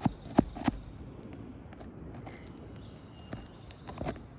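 Sharp knocks and taps on asphalt roof shingles: three in quick succession at the start, then a couple of fainter ones near the end.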